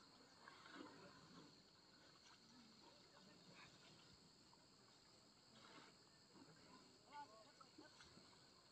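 Near silence: a faint steady insect drone, with a few faint bird chirps, one about seven seconds in.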